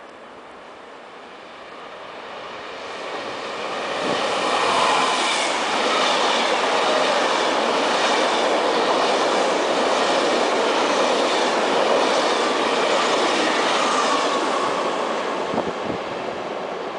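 FS ETR 470 Cisalpino tilting electric train running past along the platform. The noise of its wheels on the rails builds over the first few seconds, then holds loud and steady as the carriages go by, easing slightly near the end.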